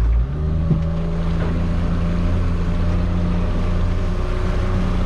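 Fishing boat's inboard engine running, its note rising a little as the revs pick up just after the start and then holding steady.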